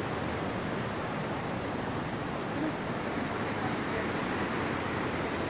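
Steady rushing water, an even roar of noise with no breaks.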